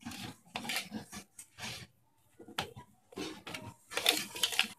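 Hand kneading semolina dough on a plate: the palm and dough rub and scrape against the plate in a string of short, uneven strokes.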